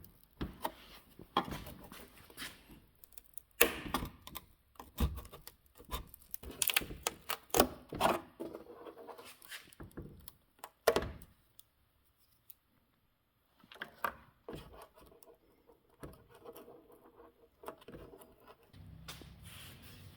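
Irregular knocks, clicks and short scrapes of hand work, broken by a brief dead-silent gap in the middle; a steady low hum starts near the end.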